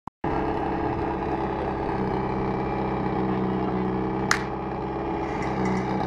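Portable fire pump's engine running steadily. About four seconds in, a single sharp crack sounds, the start signal for the team's run.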